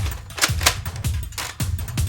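Background music with a heavy, fast drum beat.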